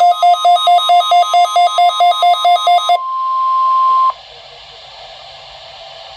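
Midland WR120 weather radio's pulsing alert beeps, about four a second, over the steady NOAA Weather Radio warning alarm tone, the sign of a weekly alarm test. The beeping stops about three seconds in, the steady tone goes on alone for another second and cuts off, leaving a low hiss of broadcast static.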